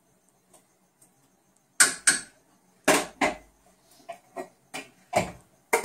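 Kitchen dishes and a serving utensil clinking and knocking together while ravioli are plated, a string of about eight sharp knocks starting about two seconds in.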